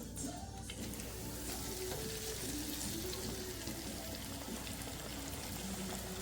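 Hot oil sizzling and bubbling in an Amazon Basics 3-liter electric deep fryer as food fries, a steady hiss that grows fuller about a second and a half in.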